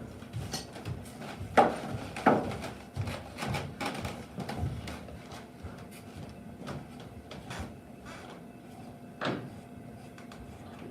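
Hand tools working a timber joint: light scraping and tapping on wood, with two sharp knocks about one and a half and two seconds in, and another near the end.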